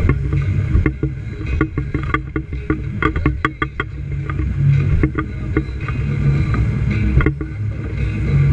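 Outboard motor running under way on a small aluminium boat. A run of quick knocks comes about one to four seconds in, as the hull slaps on the waves.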